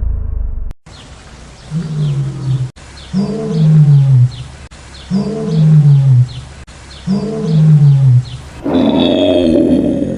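A big cat roaring: four low, drawn-out calls about two seconds apart, each falling in pitch, then a louder, rougher call near the end. Faint high chirps sound behind it.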